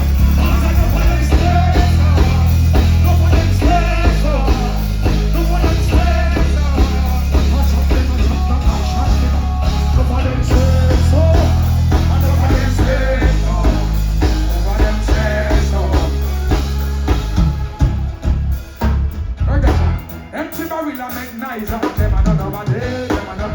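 Live dancehall band music through a concert PA, with a heavy bass line and a vocalist's voice over it. Near the end the bass drops out and the music thins.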